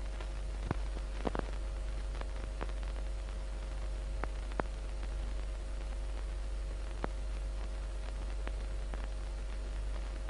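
Background noise of an old film soundtrack: steady hiss and low hum, with scattered faint clicks and crackles.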